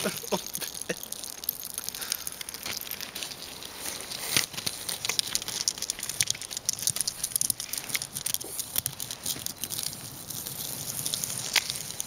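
Feet and claws crunching and scratching on an icy snow crust: irregular crackling with scattered sharp clicks as a West Highland White Terrier scrabbles and slides on the ice.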